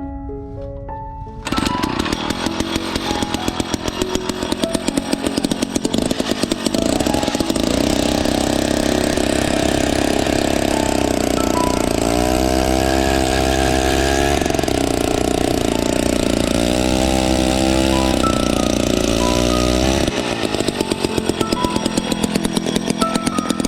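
Gas-powered ice auger's small engine starting up about a second and a half in and running hard, revving up several times as it drills through the ice. Background music with short plucked notes plays throughout.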